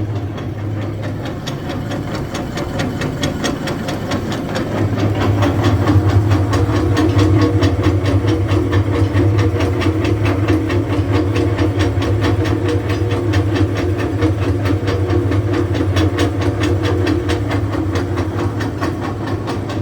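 Kolbe 110 hopper mixer grinder's 3-phase electric motor running in mix-and-grind mode: a loud, steady mechanical hum that gets somewhat louder about five seconds in.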